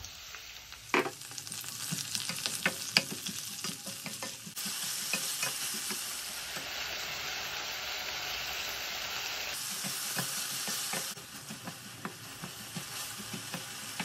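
Sliced onions sizzling in hot oil in an enamel wok, stirred with a wooden spatula that clicks and knocks against the pan. A steady loud sizzle fills the middle, with the stirring knocks coming back near the end.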